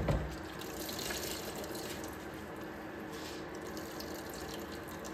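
Grated carrots squeezed by hand, their juice trickling and dripping out into a vessel, after a bump at the start.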